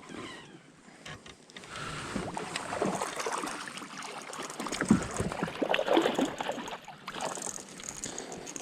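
Water splashing and irregular knocks at a fishing kayak, loudest about halfway through.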